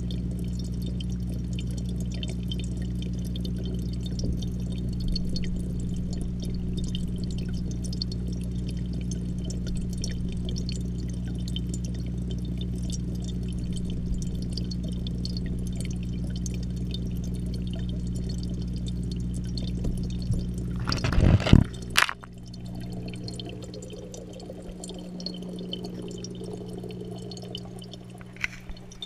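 Aquarium pump humming steadily with bubbling and trickling water, heard through a GoPro's waterproof housing underwater in the tank. About 21 seconds in comes a loud rush and a sharp knock, and after that the hum is much fainter.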